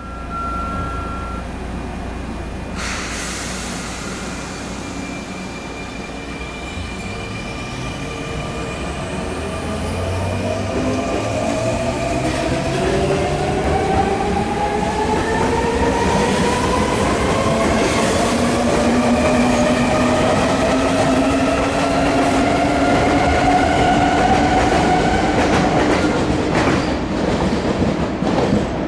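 Sotetsu electric train pulling away and accelerating. Its traction motors give a whine of several tones that climbs steadily in pitch, over the rumble of the wheels. The sound grows louder as the train picks up speed, with a few rail-joint knocks.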